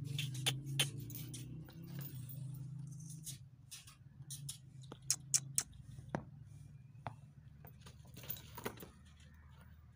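A dog's metal chain clinking in scattered sharp clicks and taps as the dog moves about. A low steady hum lies underneath and fades after about five seconds.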